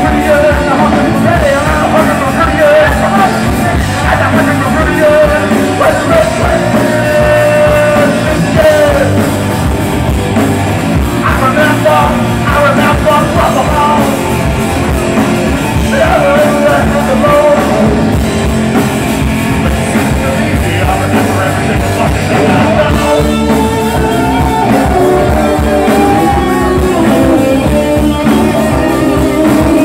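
Live rock band playing loudly, with electric guitar and drums under a wailing lead line of bending, held notes, likely a harmonica cupped against the vocal microphone.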